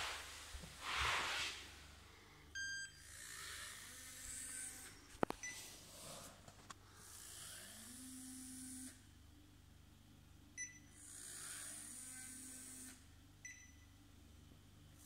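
Four short electronic beeps from a DIY Arduino laser measuring rig, a few seconds apart, with a sharp click about five seconds in and soft hissy swells between the beeps, over a faint steady hum.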